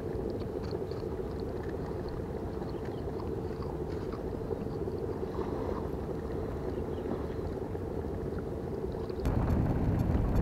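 A steady motor drone, with faint rustling of a paper food wrapper. About nine seconds in it gives way to louder, rougher wind noise on the microphone.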